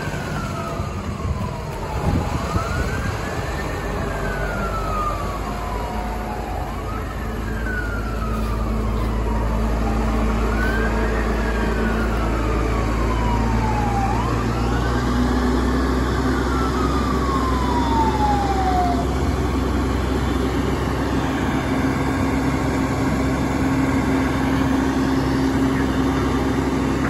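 Fire truck siren wailing: each cycle rises quickly, then falls slowly, about every four seconds. It winds down and stops about two-thirds of the way through. Underneath is a steady low rumble of a heavy diesel engine running, which gets louder about ten seconds in.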